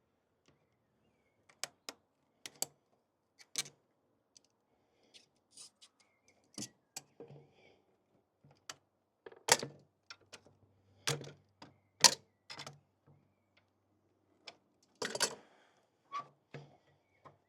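Irregular sharp clicks and knocks of hand work on hard parts in a car's engine bay, with a few louder knocks about halfway through and near the end.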